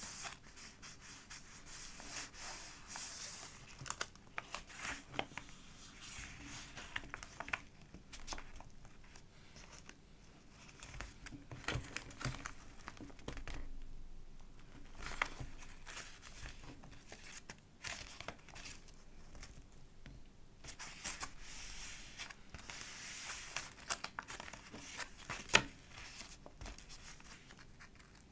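Pages of a thick collage journal being turned and handled, the layered paper crinkling and rustling, with frequent small clicks and taps and one sharper tap near the end.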